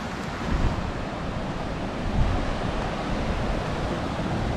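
Sea surf breaking on a beach, with wind buffeting the microphone in gusts.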